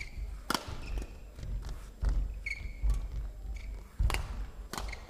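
Badminton rally: rackets strike the shuttlecock several times with sharp cracks, while court shoes squeak and feet thud on the court floor.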